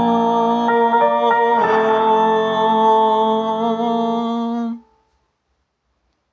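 The song's closing music: a steady held chord that cuts off abruptly about three-quarters of the way through, leaving silence.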